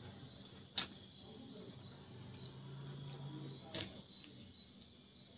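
Quiet eating sounds of chicken and rice being eaten by hand: two sharp smacks, about a second in and near the end, and a faint low hum in the middle, over a faint steady high whine.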